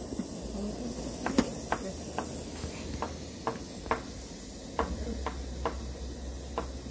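Small portable gas burner's flame running steadily under an aluminium Bialetti Alpina moka pot, with a string of short light ticks, roughly two a second, as the pot heats just before the coffee starts to rise.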